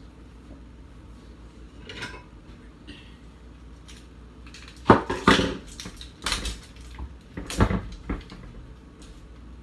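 Kitchen dishes and cutlery clattering on a counter: a faint clink about two seconds in, then a run of knocks and clinks over the second half, the loudest about five seconds in.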